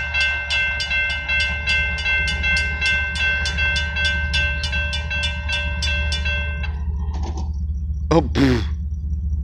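Railroad crossing bell ringing in rapid, even strokes, over a steady low rumble. The bell cuts off suddenly about two-thirds of the way in: the crossing deactivates although it was expected to stay on.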